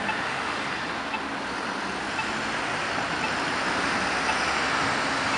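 City street traffic noise with a car driving slowly past, steady and slowly getting louder.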